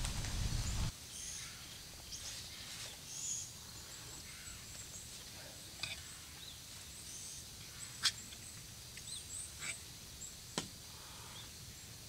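Birds chirping in short high calls over a faint steady hiss of light rain, with a few sharp taps. A low rumble in the first second cuts off abruptly.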